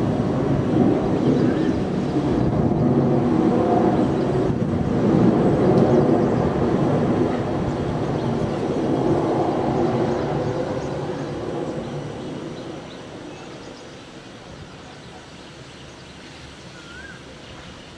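Jet engines of a landing Boeing 767-300ER freighter, a loud, steady rumble that fades away from about ten seconds in as the aircraft rolls out along the runway. A bird chirps faintly near the end.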